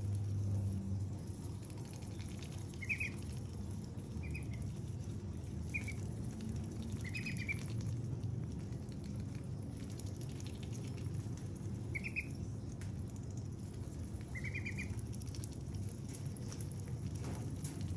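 White ducklings pecking and nibbling at a hand-held slice of watermelon, a constant wet pattering of small clicks, with about six short high peeps from the ducklings scattered through it.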